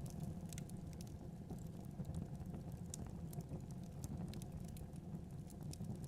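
Log fire in a fireplace crackling, with irregular sharp pops and snaps over a steady low rumble of burning.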